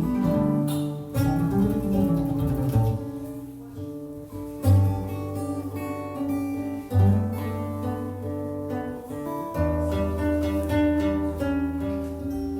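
Improvised guitar music: plucked notes and strums over held low bass notes.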